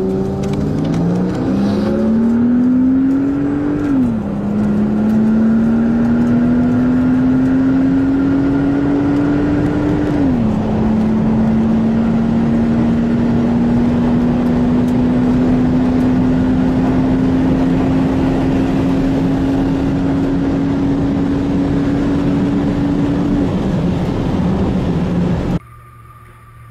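Car engine accelerating hard at full throttle through the gears: its pitch climbs, drops at upshifts about 4 and 10 seconds in, then rises slowly through a long pull until the throttle eases near the end. The engine sound cuts off abruptly near the end, leaving a much quieter background.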